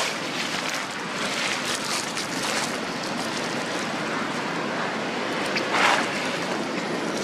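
Steady rushing hiss, like wind on the microphone, with brief rustles of dry leaves on the ground and one louder rustle near the end.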